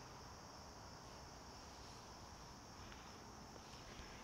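Faint, steady high-pitched chorus of crickets trilling continuously.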